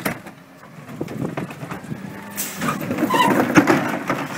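Geesink Norba rear-loading garbage truck running, with a steady low engine hum. A sharp knock at the start and a busier stretch of clanks and rattles in the second half come from the bin lifter and a plastic wheelie bin.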